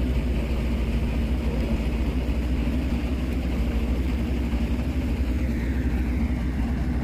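Truck diesel engine running steadily, a deep, even drone with no change in speed.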